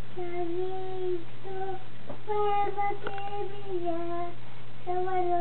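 A toddler girl singing in long, steadily held notes, with short breaks between phrases.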